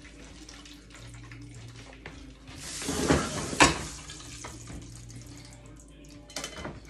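Kitchen handling noise as a pot of hot frying oil is taken off the stove and put away: a short rushing, clattering noise about two and a half seconds in that ends in one sharp knock, then a brief rattle near the end.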